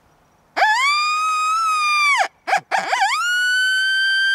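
Woodwise plastic coyote howler call blown in two long howls, each rising quickly to a held pitch; the first falls away after about a second and a half, the second is higher and still sounding at the end. A basic coyote howl that tells other coyotes "I'm here, where are you?"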